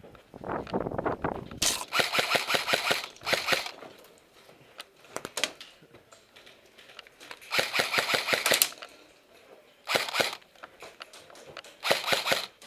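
Airsoft electric rifle firing on full auto in four bursts of rapid clicking shots: a long burst of about two seconds, a shorter one, then two brief ones near the end. A short low rumble comes just before the first burst.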